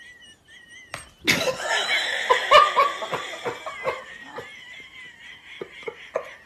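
A person laughing hard in quick bursts starting about a second in, tailing off to a few short chuckles near the end.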